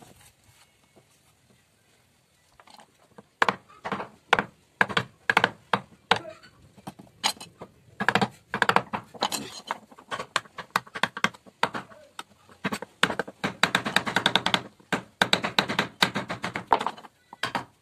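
Wooden mallet striking a carving chisel into a wooden panel: a steady run of sharp knocks, about three a second, starting about three seconds in and coming faster in the second half.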